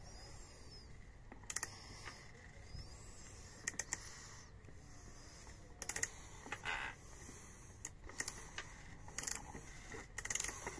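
Faint, scattered clicks and taps from hands and tools working on the motorcycle's opened engine, often in quick pairs or threes, with a short scrape about two-thirds through.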